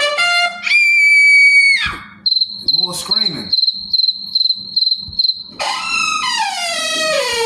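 A run of played-back sound effects. A held high electronic tone is followed by crickets chirping in a steady pulsing rhythm for about three seconds, the stock 'crickets' gag for an awkward silence. Near the end comes a long tone sliding downward in pitch.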